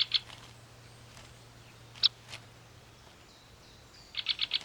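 Sharp, high bird calls: a quick double note at the start, a single call about two seconds in, and a fast run of short notes, about ten a second, beginning near the end.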